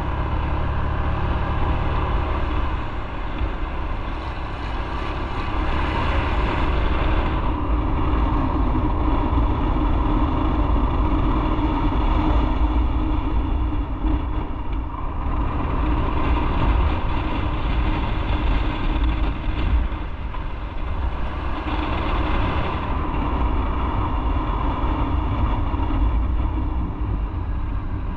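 Motorcycle riding at speed: engine running with a steady low rumble and wind noise, its note rising and easing off a few times as the throttle changes.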